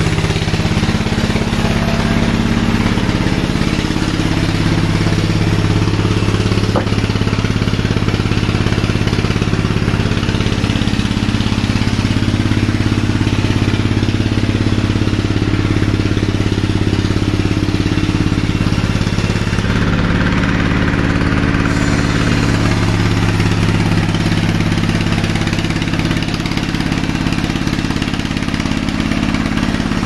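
Sawmill machinery running steadily: a continuous motor drone with a strong low hum and a hiss above it, the pitch drifting slightly but never stopping.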